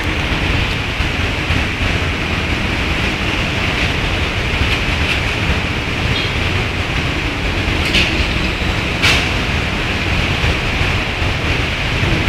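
Typhoon wind and heavy rain: a steady rushing hiss with a low rumble of wind buffeting the microphone, and two brief louder hisses about eight and nine seconds in.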